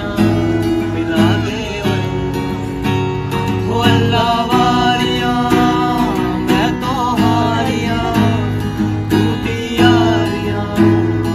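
Acoustic guitar strummed live, with men's voices singing a Hindi song along with it.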